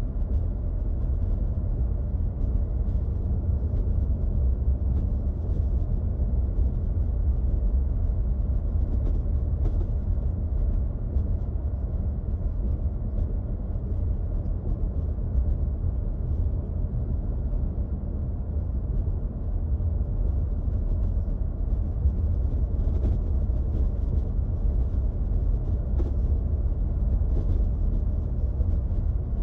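Steady low rumble of road and engine noise inside a moving car's cabin while driving on a paved road.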